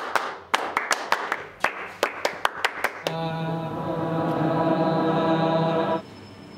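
Sharp hand claps, several a second at an uneven pace, for about three seconds, then a sustained chord held for about three seconds that cuts off suddenly.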